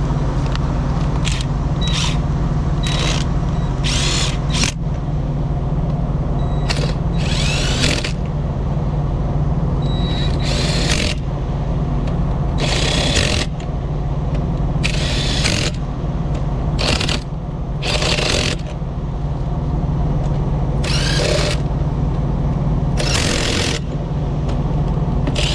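A power impact wrench running the axle shaft flange nuts down in a criss-cross pattern, in about fifteen short bursts of a fraction of a second to about a second each. A steady low engine hum runs underneath.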